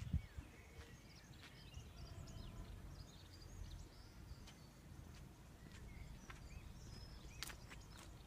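Faint outdoor ambience: small birds chirping now and then over a low steady rumble, with a few sharp clicks near the end.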